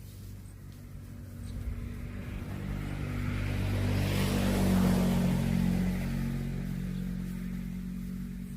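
A motor vehicle's engine running with a steady low hum, growing louder to a peak about halfway through and then fading away.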